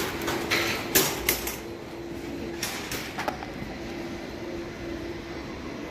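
Metal wire shopping trolley pulled out of a nested row, clanking several times in the first few seconds, then its wheels and wire basket rattling steadily as it is pushed across a smooth floor.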